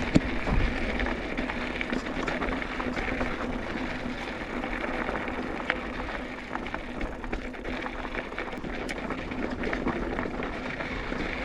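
Mountain bike rolling downhill on a rocky dirt trail: steady tyre noise over gravel with scattered clicks and knocks, and a sharper knock right at the start.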